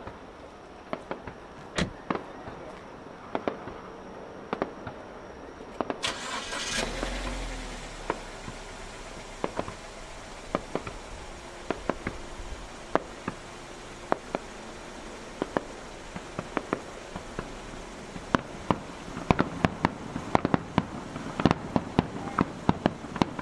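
Fireworks exploding: a run of sharp bangs, a second or two apart at first, with a longer rushing burst about six seconds in, then coming thick and fast in the last few seconds.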